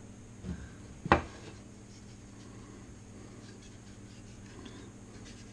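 Whirligig propeller handled on a workbench: one sharp knock about a second in, then faint rubbing and handling noise.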